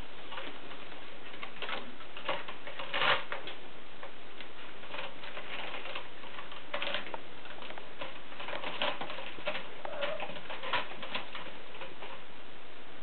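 Kitten claws scratching and scrabbling on a carpeted cat tree and its sisal post: irregular short scratches and taps, the loudest about three seconds in, over a steady hiss.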